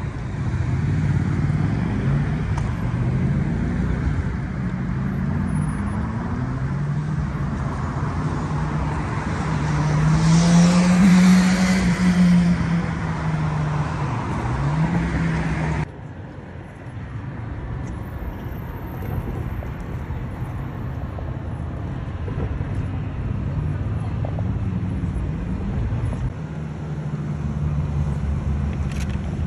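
City road traffic: cars driving past with engine tones rising and falling, one vehicle loudest as it passes about a third of the way in. About halfway through the sound drops suddenly to a quieter traffic hum.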